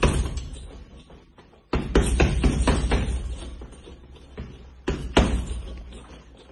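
Fists striking a hanging heavy bag in combinations of sharp slapping thuds: a hit at the start, a flurry of several about two seconds in, a single hit after four seconds and another quick flurry around five seconds in, with pauses between.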